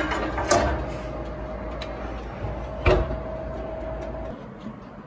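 A metal plate clinking onto an oven's wire rack, then the oven door shutting with a single thump about three seconds in, over a steady hum that stops suddenly near the end.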